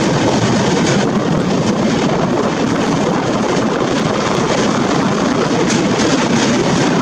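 Rajdhani Express train running along the track, heard from an open coach door: a steady rumble and rush of wheels on rails, with a few faint clicks.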